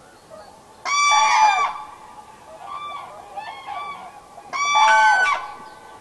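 Common crane calling: two loud, trumpeting calls, each under a second long, about a second in and again near the end, with softer calls in between.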